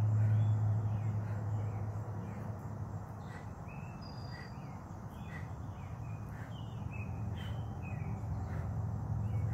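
Backyard ambience: many short bird chirps and calls over a steady low hum. The hum is loudest at the start, fades in the middle and grows again near the end.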